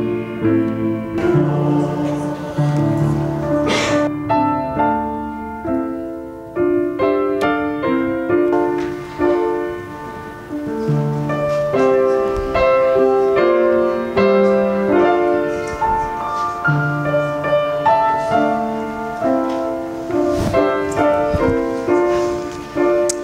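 Piano music: a melody of single notes moving over lower held chords.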